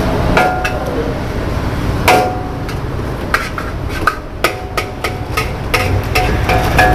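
Metal spatula striking and scraping a steel wok while frying mee goreng: a dozen or so sharp, irregularly spaced metallic clanks, several with a brief ring, over a low steady rumble.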